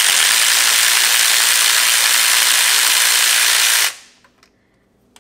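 Power ratchet running steadily as it spins out a 10 mm bolt holding a bracket near the starter, then stopping abruptly about four seconds in.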